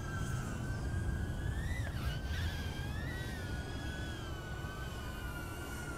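Tiny-whoop FPV micro drone's motors whining in flight, a high whine with a fainter higher tone above it, the pitch wavering up and down as the throttle changes.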